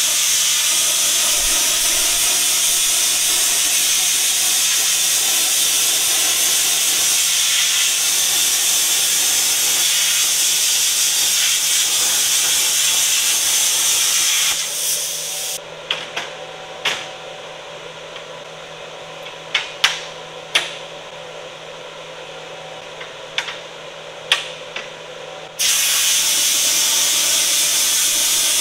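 AC TIG welding arc on aluminum plate, a steady hiss. About halfway the arc stops, and for some ten seconds only a quieter background with a dozen sharp clicks is heard. Then the arc strikes again suddenly near the end.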